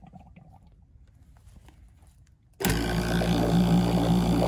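Quiet at first. About two and a half seconds in, an HVAC refrigeration vacuum pump switches on abruptly and runs with a steady hum, pulling the mini-split's line set back down into vacuum after a nitrogen purge.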